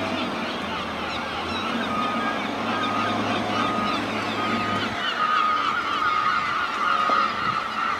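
A large flock of gulls calling all at once, a dense chatter of short cries, over the low hum of a landfill compactor's engine that fades about five seconds in. A short beep repeats at even spacing from about two seconds in.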